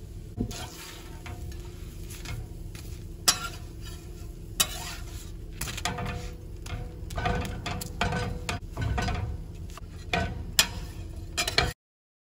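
A spatula scraping and tapping against a nonstick tawa as a besan cheela is loosened and folded over, with several sharp clicks over a low steady hum. It cuts off abruptly near the end.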